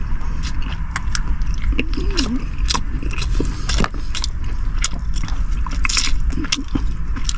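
A man gnawing and chewing meat off braised pork spine bones, with many small crunches and clicks of teeth on bone. Underneath runs a steady low rumble of strong wind around the car.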